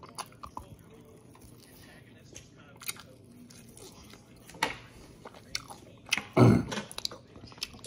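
Close-up mouth sounds of a person eating grilled Korean short ribs: biting meat off the rib bones, chewing and smacking, with scattered small clicks. A louder, low thud comes a little past six seconds.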